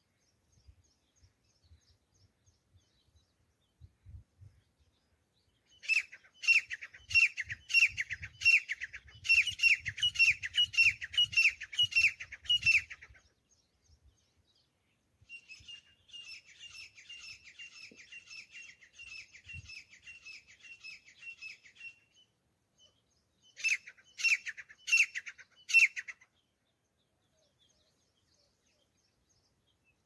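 Grey francolin calling: a loud run of repeated notes, about two a second, lasting some seven seconds, then a fainter, faster run of notes, and a second short loud run near the end.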